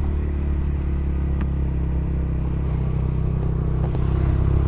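Honda CBR125's single-cylinder four-stroke engine running steadily, growing a little louder near the end.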